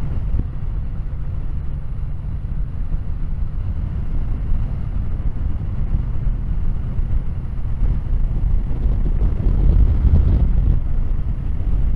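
Kawasaki W800 parallel-twin motorcycle ridden on the road: a steady low rumble of engine and wind on the bike-mounted microphone, growing a little louder after about nine seconds.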